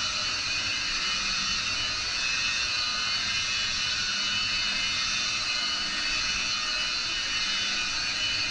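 Electric rotary polisher running with a steady high whine, its pad buffing the hard resin-glassed surface of a surfboard.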